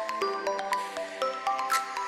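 Background music: a melody of short notes stepping in pitch several times a second, over light percussion.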